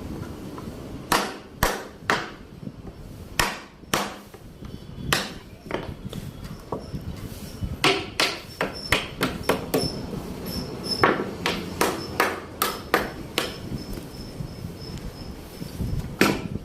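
Hammer blows on wood during hand woodworking, struck as irregular sharp knocks, a few seconds apart at first and then coming faster, about two a second, from around the middle. A faint high ring lingers between the blows in the second half.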